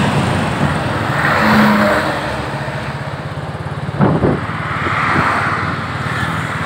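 Road traffic passing close by: vehicle engines running and tyres hissing, with a sharp thump about four seconds in.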